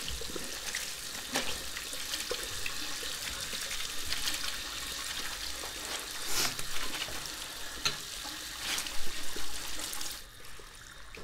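Water running from a bathroom tap into a sink while hands scrub and splash a cloth in the stream. The running water cuts off about ten seconds in.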